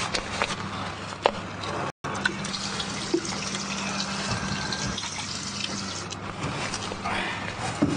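Water running steadily from a tap into a wall-mounted basin, cutting out briefly about two seconds in.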